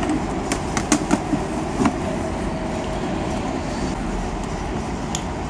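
Steady background noise with several light clicks and taps in the first two seconds and one more near the end, as fingers handle the amplified speaker's control panel.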